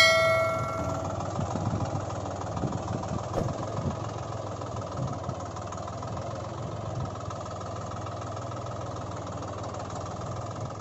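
Tractor engine idling steadily, a dubbed engine sound effect. A bright chime rings and fades at the very start.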